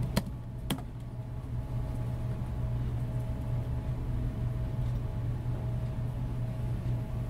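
A steady low hum with a fainter higher tone over it. Just after the start come two sharp clicks about half a second apart: keystrokes on a laptop keyboard as a terminal prompt is answered.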